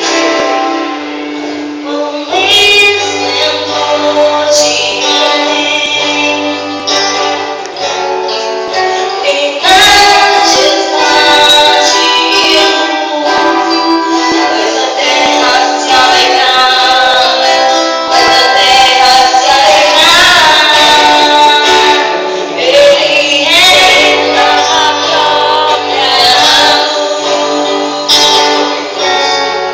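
Music: a woman singing with guitar accompaniment. It gets louder and fuller about ten seconds in, with percussion hits joining.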